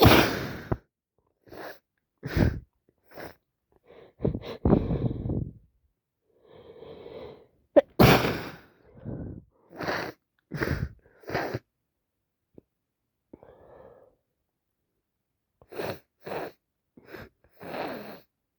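A person sneezing over and over in an allergy attack: about ten sharp sneezes, several coming in quick runs, with quieter breathy inhales between them.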